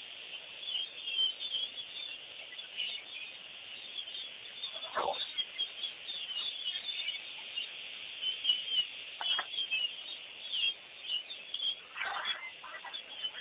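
Wild birds chirping and calling continually over a steady high-pitched hiss. A few louder, separate calls stand out about a third of the way in, past the middle, and near the end.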